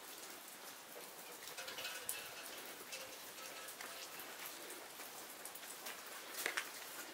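Faint, irregular light ticks and clicks over a steady low hiss, with a couple of sharper ticks about six and a half seconds in.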